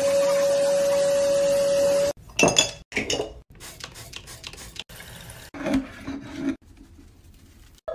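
An upholstery extraction vacuum's nozzle sucking on a cushion with a steady whine, which cuts off abruptly about two seconds in. After it, a few scattered clinks and knocks of hard items being handled in a bathroom sink.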